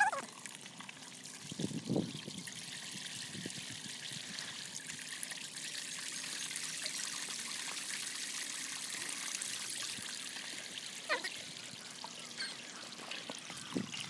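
Water from a small garden fountain jet spraying out of a bare pipe and trickling and splashing back into the pond, a steady hiss that grows louder through the middle and eases near the end. A short low knock about two seconds in.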